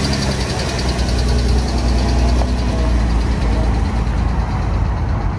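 Jeep Wrangler engine running steadily at low revs as the Jeep crawls slowly past close by.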